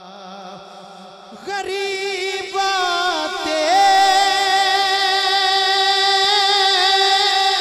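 A man singing a long, wordless opening note into a microphone, the unaccompanied start of an Urdu/Punjabi naat. It begins softly, grows much louder about a second and a half in, and is held in long notes with small turns in pitch.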